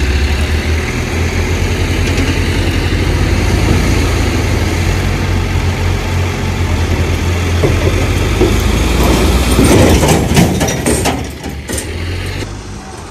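Diesel engine of an Escorts Hydra crane running steadily while pulling. About ten seconds in there is a run of sharp knocks, after which the sound drops a little.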